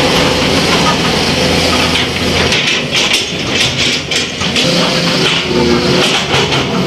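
A motor vehicle engine running under a loud, dense noisy din, with scattered clicks and knocks; the steady low hum dips out in the middle and comes back.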